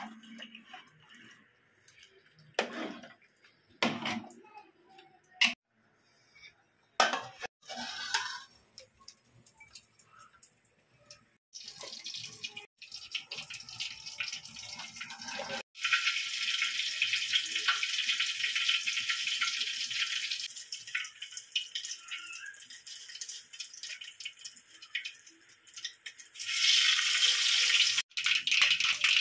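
A few sharp knocks of metal pots and utensils being handled, then water poured from a plastic bottle into a wide aluminium pot: a steady splashing pour that starts about a third of the way in and gets louder near the end.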